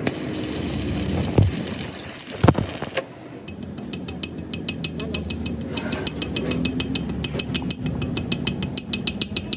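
Rapid, evenly spaced mechanical clicking, about six or seven clicks a second, starting about three and a half seconds in, like a ratchet mechanism turning, over steady workshop noise with a few sharp knocks before it.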